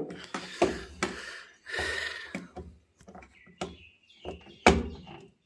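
Clicks, knocks and rustles of pliers and a plastic hose being worked as the pressure-sensor pipe is pushed onto its fitting on a washing machine's plastic tub and clamped. There is a sharper knock near the end.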